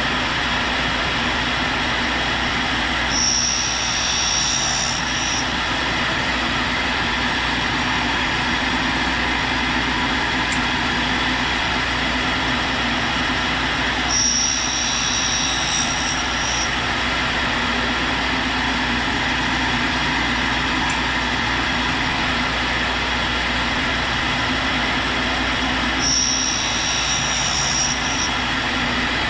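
Tool and cutter grinder running with the steady hiss of its air spindle fixture, as a 4-flute high-speed steel roughing end mill is turned by hand against the wheel. Three times, about eleven seconds apart, a high-pitched grinding tone sounds for about two seconds as the wheel cuts along the edge.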